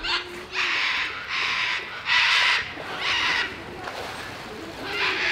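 California sea lion barking: a quick series of about six loud barks, with a pause before the last one near the end.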